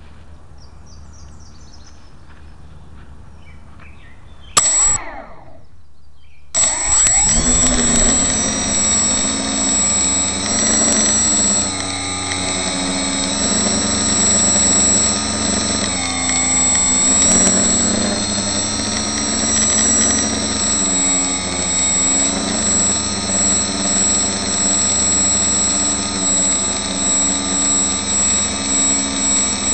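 Quadcopter's four Suppo 2212 1200kv brushless outrunner motors spinning 8x4.5 propellers, heard close up from on the frame. They spin up briefly about four and a half seconds in and die back, then about six and a half seconds in they throttle up for takeoff and run on as a loud whir of several steady tones with a steady high whine, the pitch wandering up and down as the throttle changes in flight.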